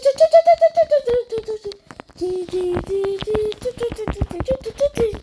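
A simple tune of short, held notes stepping up and down in pitch, with many sharp clicks and taps throughout.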